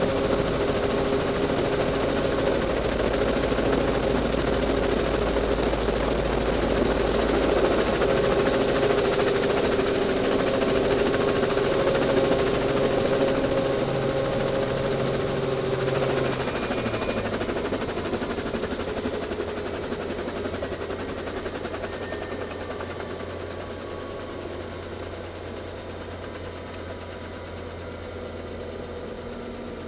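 Small helicopter's engine and rotor running, heard from inside the cabin as a steady drone. About halfway through, the pitch steps down and the sound then fades steadily as power is taken off after touching down on the snow.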